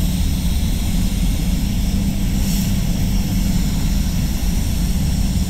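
Avalon Beyond Nova spray gun hissing as it lays a coat of clear, over a steady low drone of the spray booth's air flow.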